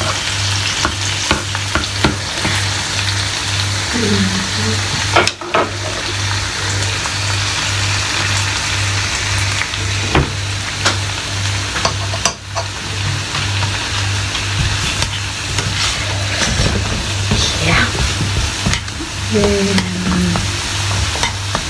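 Bacon sizzling and spitting in a small frying pan, with occasional sharp clicks of tongs against the pan as it is turned. A low hum pulses underneath about twice a second.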